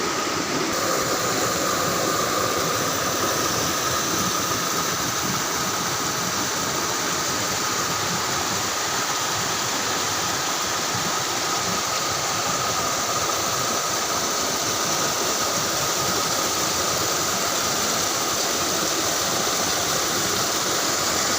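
Water of a small river falling over a low waterfall, a steady, unbroken rushing, with a faint thin high tone running through it.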